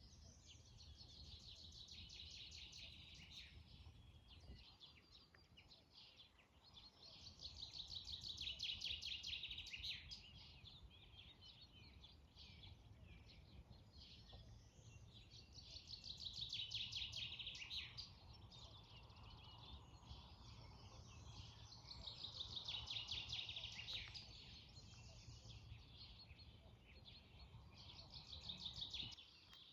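A songbird singing fast, high trilling phrases about 2 to 3 seconds long, repeated roughly every six seconds, over a faint low steady rumble.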